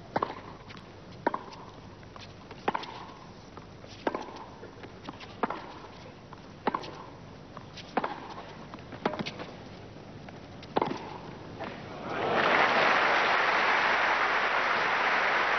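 Tennis rally: the ball struck by rackets in a steady exchange, a sharp hit about every second and a half, around nine in all. About twelve seconds in, the crowd breaks into applause as the point ends.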